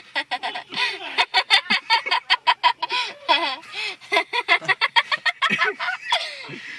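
A person imitating a chicken: a rapid run of short, pitched squawks and clucks, several a second, thinning out near the end.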